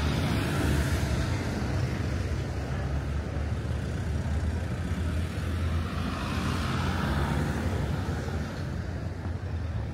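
A motor vehicle's engine running with a steady low rumble, with a swell of noise about six to seven seconds in.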